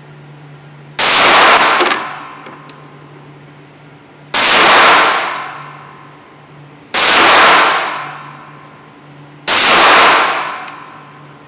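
Four 9mm shots from a Tisas PX-9 pistol, fired slowly about two and a half to three seconds apart, each a sharp crack with a ringing tail that dies away over about a second.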